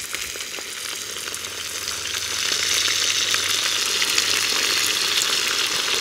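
Lamb ribs frying in hot rendered lamb-tail fat in a kazan: a dense sizzle with fine crackles that grows louder over the first two or three seconds, then holds steady.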